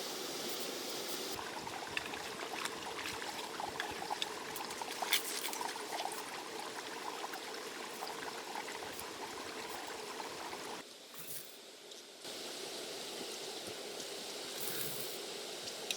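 Water trickling, with small splashes and ticks.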